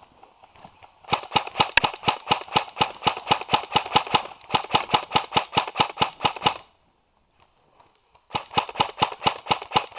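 Airsoft rifle firing on full auto: a long burst of rapid, even clacks starting about a second in and lasting over five seconds, then, after a short pause, a second burst starting near the end.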